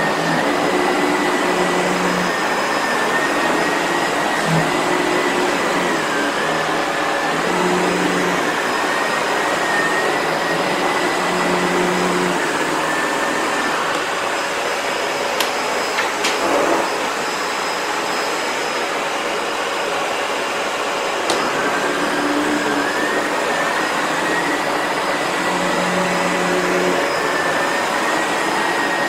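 Sebo Felix upright vacuum cleaner running steadily, its motor whine dipping in pitch and recovering several times, with a few sharp clicks partway through.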